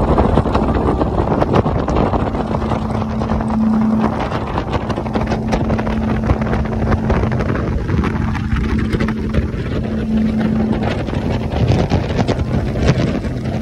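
Twin 300 hp outboard motors running at speed, pushing the boat over open water with a steady engine hum. Heavy wind buffets the microphone throughout.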